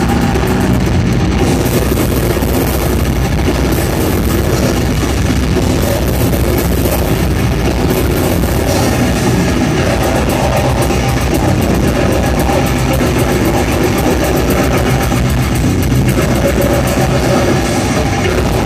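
Death metal band playing live at full volume: distorted electric guitars and bass over a drum kit, with the vocalist singing into the microphone. The mix is a dense, unbroken wall of sound with no pauses.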